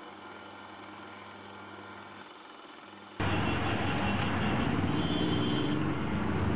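A faint steady hum, then about three seconds in a sudden cut to the loud, steady engine and road noise of a ride in an auto-rickshaw through traffic.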